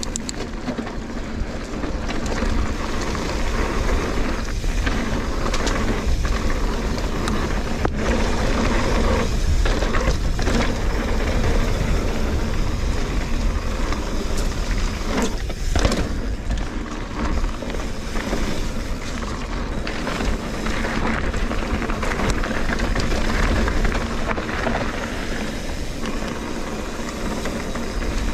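Wind rushing over an action camera's microphone with a steady low rumble as a Trek Fuel EX 8 full-suspension mountain bike rides a dirt trail. The tyres roll over the ground, and the bike clatters over bumps now and then.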